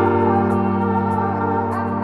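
Background music: sustained keyboard-like chords with a light ticking beat, changing chord at the start.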